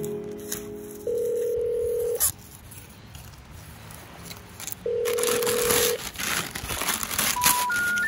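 Masking tape being peeled and newspaper masking crumpled and torn off a bullbar, a rustling crackle in the second half. Over it are two long steady beeps of about a second each, one early and one midway. Three short beeps rising in pitch come near the end.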